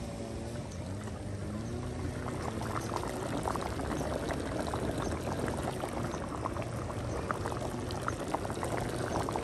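Thick sardine sambal in tomato-chilli sauce bubbling in a pot on a camping stove, with many small pops and splutters that get busier after about two seconds.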